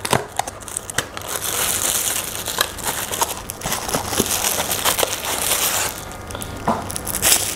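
Cardboard packaging being opened and a lemon squeezer in a clear plastic sleeve slid out: rustling of cardboard and crinkling of plastic, with scattered sharp clicks and taps.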